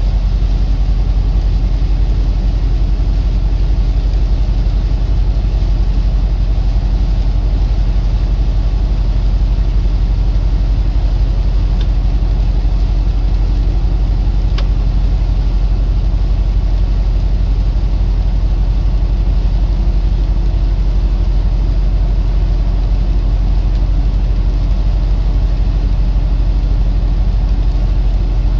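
A truck's engine and road noise hold a steady low drone, with a single sharp click about halfway through.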